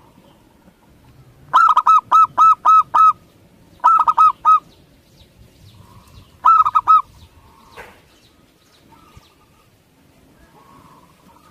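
Zebra dove (perkutut) singing: three runs of quick, loud cooing notes, the first and longest about six notes, then four, then three, with fainter coos between.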